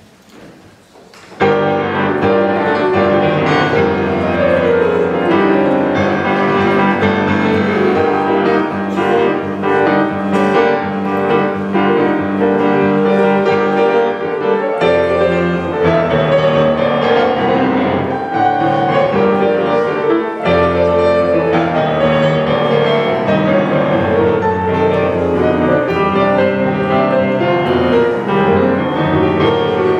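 Solo grand piano playing a waltz, with quick runs of notes, starting suddenly about a second and a half in.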